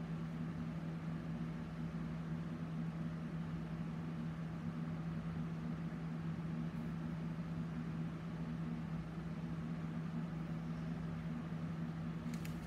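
Room tone: a steady low electrical or mechanical hum over a faint hiss, with a couple of faint clicks near the end.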